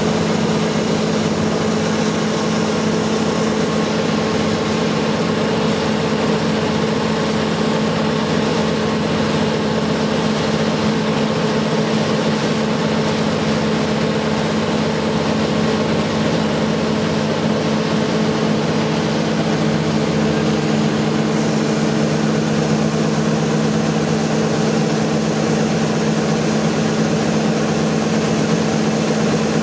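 John Deere 1052 combine harvester running steadily while it unloads grain through its auger: an even engine and machinery hum with a constant hiss over it.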